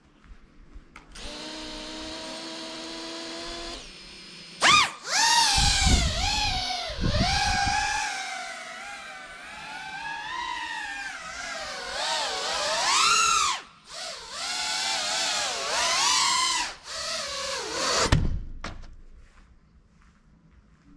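GEPRC FPV quadcopter's electric motors. A steady whine starts about a second in as they idle. From about five seconds in they whine loudly, the pitch sweeping up and down with the throttle as the drone takes off and flies, with short dips near fourteen and seventeen seconds, then cut off about eighteen seconds in.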